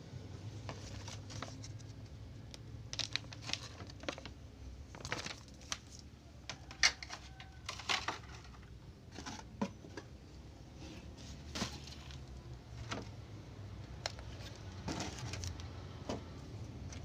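Packaging being handled: scattered clicks and crinkling rustles, irregular and uneven, with a few sharper clicks.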